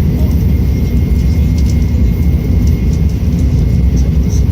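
Tokaido Shinkansen bullet train running at high speed, heard from inside the passenger car: a loud, steady rumble of wheels and air with a thin high whine held throughout.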